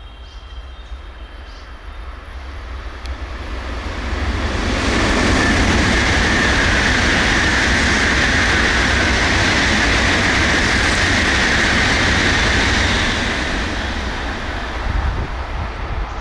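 Shinkansen bullet train passing through the station at speed without stopping: a rushing noise that builds over a few seconds, holds loud and steady for about eight seconds, then fades.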